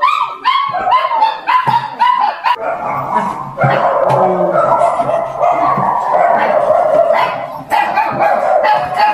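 Kennel dogs barking and yelping. A quick run of short high yelps comes first, then about two and a half seconds in many dogs bark over each other for several seconds, and short yelps return near the end.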